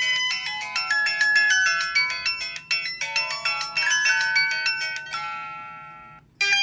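Samsung Juke ringtones playing: an electronic ringtone melody of clear, bright notes ends on a held chord that fades out about five seconds in. After a brief gap, a different ringtone starts just before the end.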